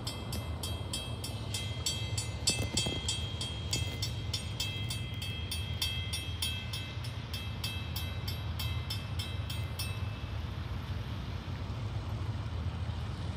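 Railroad grade-crossing bell ringing at about two to three strokes a second as the crossing gates lower for an approaching train, stopping about ten seconds in once the gates are down. A steady low rumble runs underneath.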